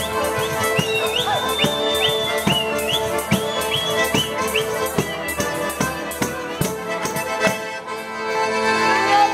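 Accordions and tambourines playing a lively southern Italian folk tune together, the accordions holding sustained chords and melody over a steady jingling tambourine beat.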